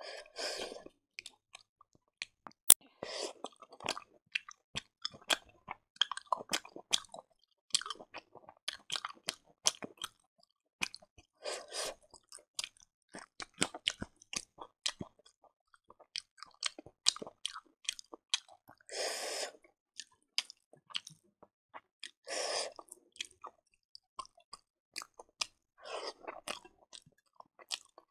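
Close-miked chewing of pork and rice: many short, wet mouth clicks and smacks, with about half a dozen longer, louder sounds of about a second each scattered through.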